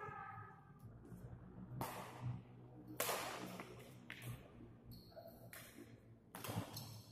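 Badminton rackets hitting a shuttlecock in a doubles rally: several sharp strikes a second or more apart, each ringing briefly in the hall, over a faint steady hum.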